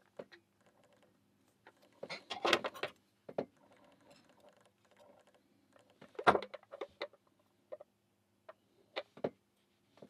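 Small metal parts of an IZIS tubular lock clicking and tapping as it is handled and worked with a steel tool during reassembly. There is a short rattling run of clicks about two seconds in, one sharp click around six seconds in, and a few single ticks near the end.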